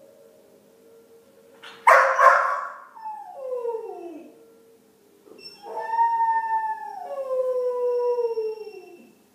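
Dog left alone howling, the distress of separation anxiety. A sharp yelp about two seconds in slides down into a falling whine, then a long howl from about halfway drops in pitch at its end.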